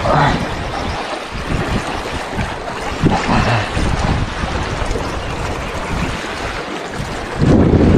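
Sea waves washing against the shore rocks, with wind rumbling on the microphone; a louder surge of water and wind comes in about seven and a half seconds in.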